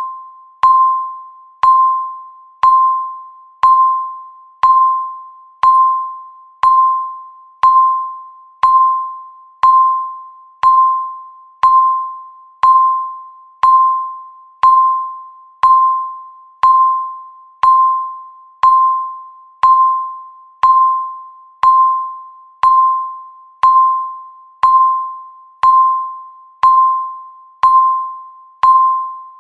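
Electronic countdown-timer beep sounding once a second, each a short tone at the same pitch that starts sharply and fades away before the next.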